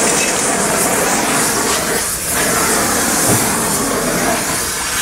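Gas torch flame hissing steadily while it heats a stuck front suspension control-arm bolt to free it, with a brief dip about two seconds in.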